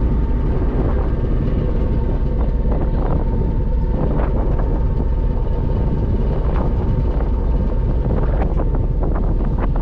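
Passenger ferry under way: the engine's steady low rumble with a faint constant whine above it, and wind buffeting the microphone.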